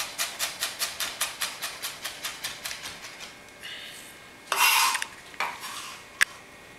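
Chef's knife rapidly mincing a jalapeño on a wooden cutting board, about five quick chops a second, stopping about three seconds in. Then the blade is scraped across the board to gather the pieces, the loudest sound, with a shorter scrape and a sharp click of the knife near the end.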